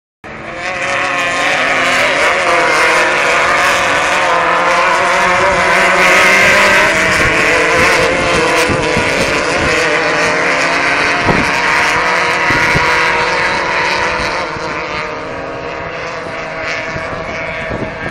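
Engines of several off-road race trucks running hard along a dirt track, a loud continuous drone that shifts in pitch and eases off somewhat near the end.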